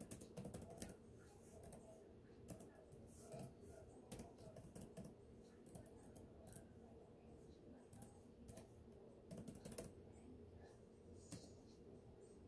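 Faint typing on a computer keyboard: irregular runs of soft key clicks with short pauses between them.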